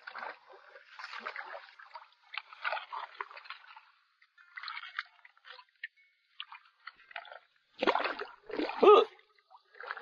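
Shallow rock-pool water splashing and sloshing as a wooden stick stirs it and a hand net is swept through it, with two heavier splashes near the end.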